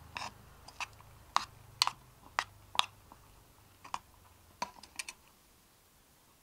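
A spoon knocking and scraping against the side of a metal Swedish army mess tin while scooping cooked rice: about ten sharp, irregular clicks over roughly five seconds, then quiet.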